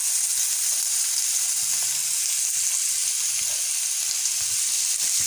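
Chopped vegetables (capsicum, potato and cabbage) sizzling as they are tipped into a pan of hot melted ghee: a steady high hiss of frying, with a few faint ticks of pieces landing in the pan.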